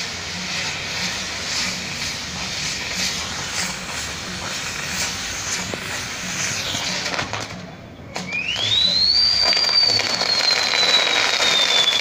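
Fireworks on a burning castillo pirotécnico: a steady hiss of fountains spraying sparks. About eight seconds in, after a brief lull, a loud whistle starts, rising quickly and then sliding slowly down in pitch.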